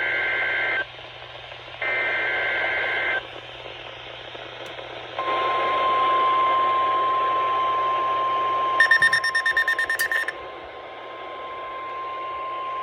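NOAA Weather Radio emergency alert signals: two bursts of the SAME data header's two-tone digital warble about a second apart, then, about five seconds in, the steady 1050 Hz warning alarm tone, which holds to the end. A rapidly pulsing electronic beep sounds over the tone for about a second and a half, around nine seconds in.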